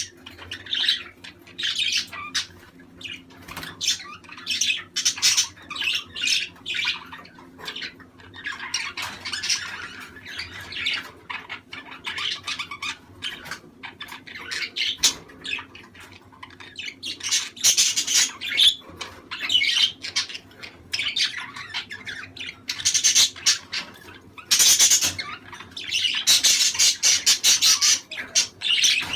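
Budgerigars (budgies) chattering and squawking, a dense run of rapid chirps and warbles with louder clusters. This is a flock's breeding-season chatter, of the kind played to pet budgies to encourage them to mate.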